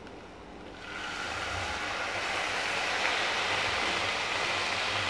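Water poured into a hot pan of fried onion-tomato masala starts sizzling about a second in, then keeps up a steady hiss.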